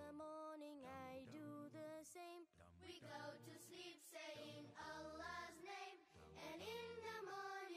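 Quiet background music: a song with a singing voice over steady accompaniment.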